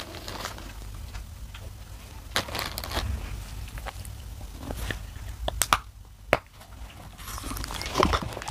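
Black shale clay being bitten and crunched close to a lapel microphone: scattered sharp cracks and crunches, loudest near the end as a bite breaks off.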